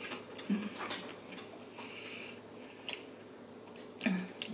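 Close-miked chewing of crispy waffle-cut fries: scattered crunches and wet mouth clicks, irregular and spaced apart.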